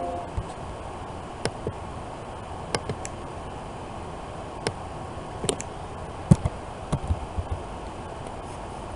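Computer mouse clicks and keyboard taps, about a dozen short sharp ticks at irregular spacing, most of them bunched in the second half, over a steady background hiss.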